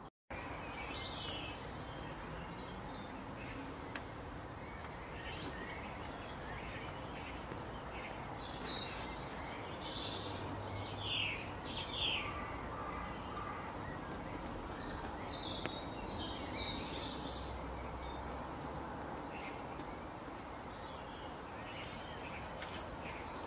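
Wild birds chirping and singing at intervals over a steady outdoor background hiss.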